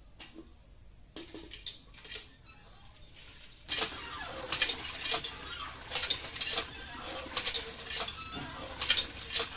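Cast-iron hand pump being worked: the handle clanks at each up and down stroke while water gushes from the spout into a metal bucket. A few lighter knocks come first, and the pumping and water start about four seconds in.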